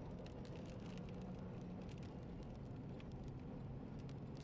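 Inside a car's cabin: the steady hum of the engine and road noise as it drives, with scattered light ticks of raindrops hitting the windshield.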